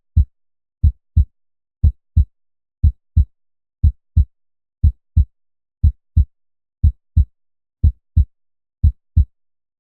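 Human heartbeat sound effect: a steady lub-dub of paired deep thumps, the second about a third of a second after the first, one pair every second (60 beats a minute), with silence between the beats.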